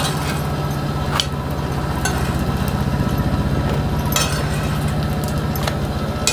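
A steady low machine hum with a fast pulse, and over it a few sharp clinks and scrapes of a steel spoon against an iron tawa as fried eggplant slices are lifted off.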